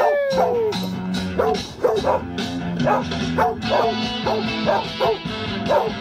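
Song with guitar and horns playing loudly, with a dog barking and yipping along in short repeated calls as the music sets it off.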